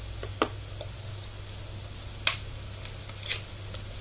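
A few short sharp clicks and taps of a small item and its packaging being handled, with a low steady hum underneath.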